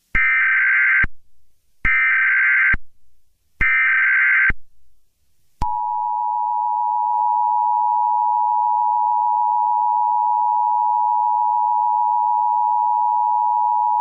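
Emergency Alert System header: three short, warbling data-tone bursts about a second apart, then the EAS two-tone attention signal (853 and 960 Hz together) holding steadily for about eight seconds.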